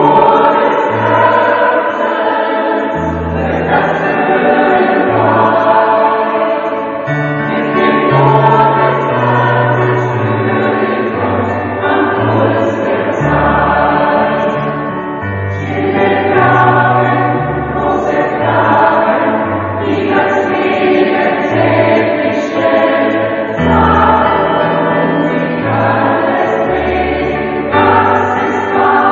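Choir singing with instrumental accompaniment and a moving bass line underneath.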